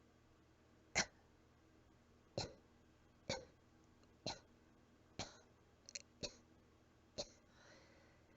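A series of soft, weak single coughs, about eight of them roughly a second apart, a little out of breath, with a faint breath near the end.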